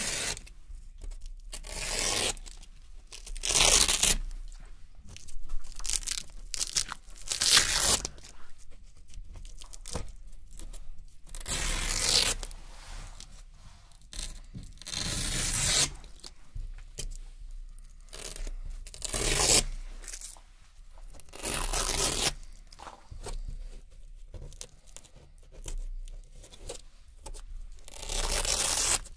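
Small Velcro hook-and-loop strips being ripped off one after another: about a dozen crisp, crunchy tearing rips, each lasting up to a second, with short pauses between.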